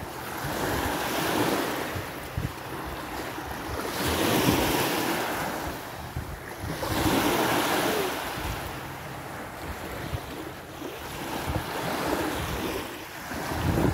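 Small Lake Erie waves washing up on a sandy shore, swelling and falling back every few seconds, with wind buffeting the microphone.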